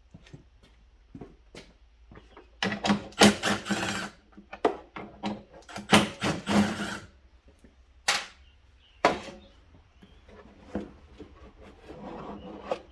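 Irregular clattering and sharp knocks of hand work on a riding mower as its fuel tank is taken out, busiest for a few seconds after the start, with two sharp knocks about eight and nine seconds in.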